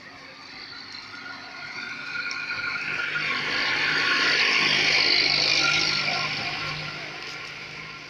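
A road vehicle passing at speed on the road alongside, its noise building to a peak about halfway through and then fading away.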